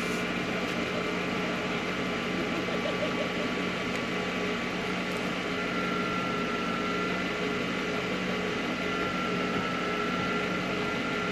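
A vehicle engine idling steadily, a constant hum with a few fixed tones.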